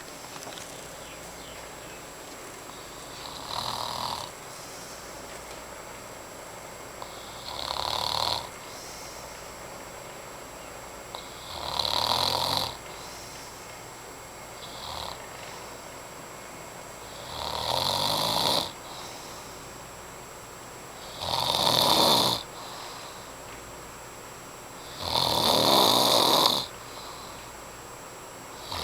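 A man snoring in his sleep, one loud snore about every four seconds, the snores growing louder toward the end.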